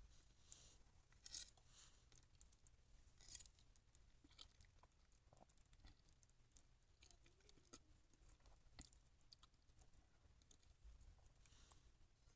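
Buldak ramen noodles with melted mozzarella being eaten: three sharp, wet mouth sounds in the first few seconds, then quiet chewing with scattered small clicks.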